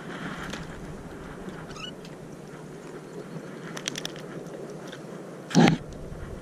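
A few light clicks over a steady background hiss, then one loud, sharp thump about five and a half seconds in.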